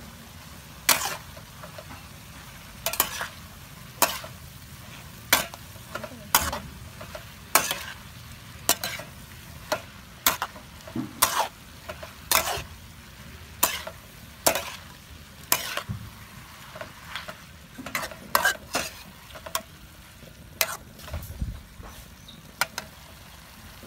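Metal ladle and spatula clanking and scraping against a steel wok as snails, chilies and greens are stir-fried, roughly once a second and unevenly, over a steady sizzle of frying.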